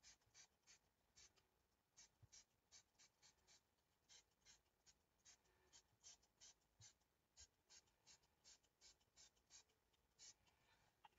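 Faint, quick scratchy strokes on paper, about three a second, from colour being worked onto a mixed-media project by hand.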